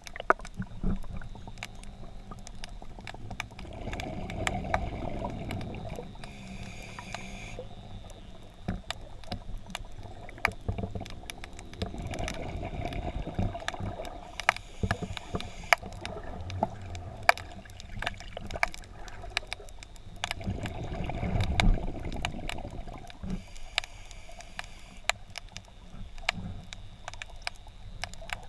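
Underwater sound of a scuba diver breathing through a regulator: a slow cycle about every eight seconds of a low rush of bubbles and a shorter high hiss, with many small sharp clicks and ticks in the water.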